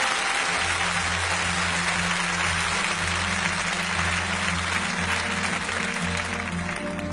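Audience applauding over music with held low notes; the applause dies away near the end.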